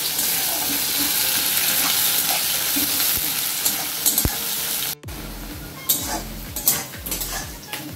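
Sliced onions sizzling in hot mustard oil in a kadai while a metal spatula stirs them. About five seconds in the sizzle drops off abruptly, leaving quieter clinks and scrapes of the spatula against the pan.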